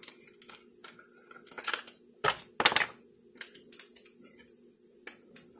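Plastic squeeze bottle of mustard being opened by hand: scattered clicks and cracks as the cap is twisted and worked off, the loudest a little past two seconds in, over a faint steady hum.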